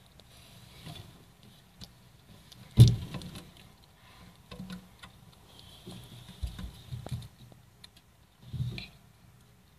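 Hamster moving about in paper bedding and nibbling, irregular small clicks and rustles, with a sharp knock about three seconds in and softer thumps later on.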